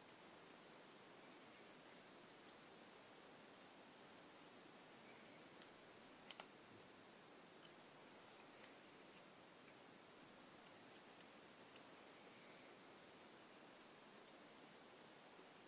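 Small scissors snipping paper in short, irregular faint snips while cutting out a small shape, the loudest snip about six seconds in.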